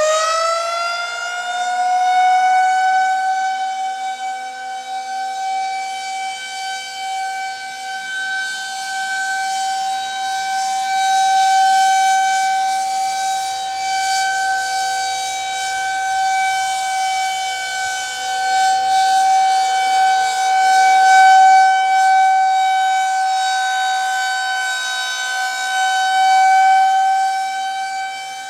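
Federal Signal 2001-130 rotating outdoor warning siren sounding the steady Alert tone. It climbs in pitch as it winds up over the first couple of seconds, then holds one steady pitch. The level swells and fades slowly as the rotating horn sweeps past.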